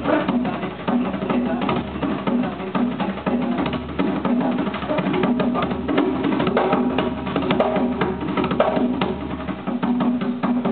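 Tall hand drums struck with bare hands, playing a fast, dense rhythm of many strokes a second.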